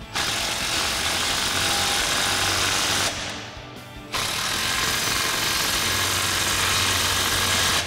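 Cordless power tool running a socket onto the nuts of the exhaust band clamps, giving them their final tightening. It runs twice: once for about three seconds, then again for nearly four after a pause of about a second.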